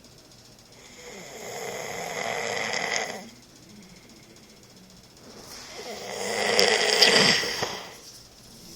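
A man snoring in his sleep: two long snores about four and a half seconds apart, each building up, the second louder with a rough rattle near its peak.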